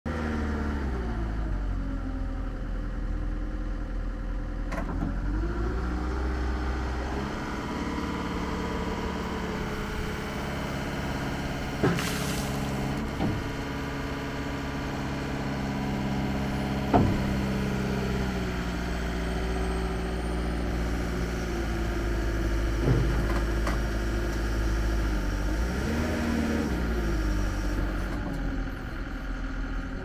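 John Deere 333G compact track loader's 96.6 hp Tier 4 diesel engine running, its note shifting up and down several times as the loader raises and works its lift arms and bucket. A few sharp clunks come through, about four across the stretch.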